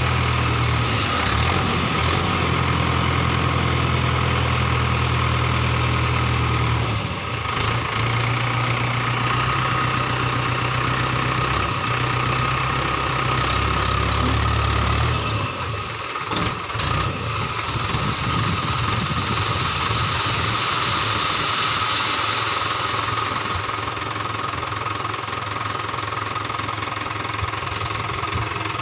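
Mahindra 575 DI tractor's diesel engine running steadily under load as its hydraulics tip the loaded trolley. About halfway the deep low engine note drops away and the engine runs on more lightly.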